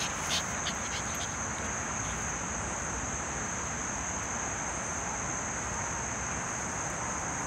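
Steady high-pitched trilling of insects in the grass, over a low, even rumble of outdoor background noise. There are a few faint ticks in the first second.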